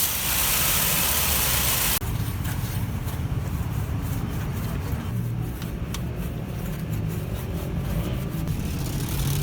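Steady spray hiss of cleaning the engine bay, which cuts off about two seconds in. It gives way to a low, steady engine-like rumble, as of a car engine idling.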